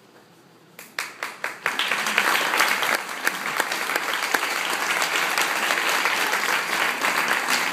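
Audience applauding: a few separate claps about a second in, quickly swelling into full, steady applause.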